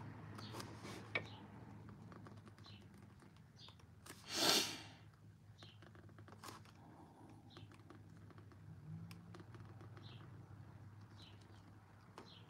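Quiet room with a steady low hum, faint short high chirps like birds every second or so, a few soft clicks, and one short breathy rush of noise about four seconds in.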